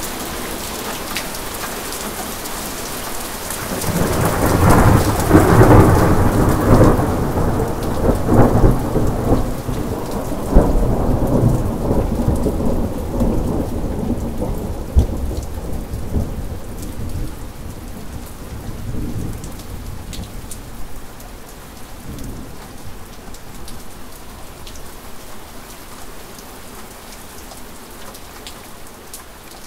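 Steady heavy rain with a long rolling thunderclap. The thunder builds about four seconds in, rumbles loudest for several seconds with some cracks in it, then fades slowly over the next ten seconds or so, leaving the rain.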